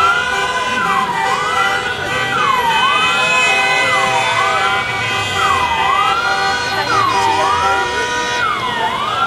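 Ambulance siren wailing, its pitch climbing and dropping over and over about every second and a half.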